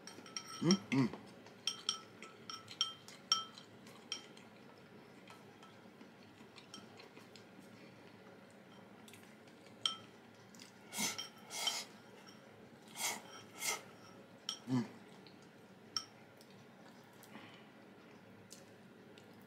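Eating utensils clinking and tapping against dishes, with light ringing clicks clustered in the first few seconds and a few more later. About halfway through come two pairs of short breathy bursts, and there are brief low hums near the start and again toward the end.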